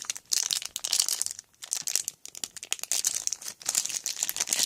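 Wrapper of a 2014 Sage Hit football card pack crinkling and tearing as it is worked open by hand, in fits and starts with two short pauses.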